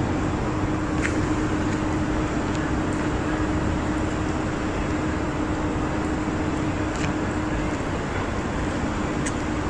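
Steady urban outdoor background noise with a constant low hum and a few faint clicks.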